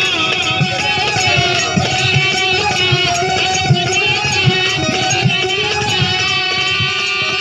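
Instrumental break in a Bhojpuri folk song: a wavering lead melody over regular drum beats.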